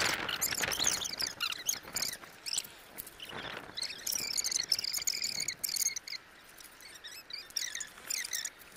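High chirping and trilling from wildlife, with scattered light clicks of plastic toy track pieces being handled and fitted together in the first few seconds.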